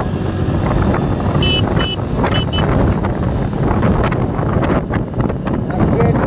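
Wind rushing over the microphone of a moving motorbike, with steady road and engine noise beneath. A few short high chirps come between about one and a half and two and a half seconds in.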